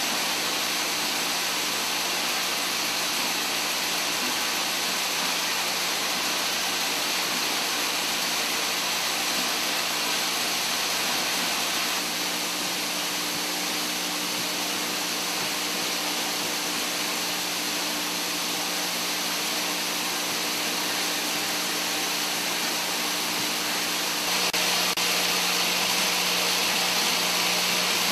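Syringe assembly machinery running: vibratory bowl feeders sorting plastic syringe parts, a steady mechanical hum over an even hiss. The sound shifts slightly near the middle and again near the end.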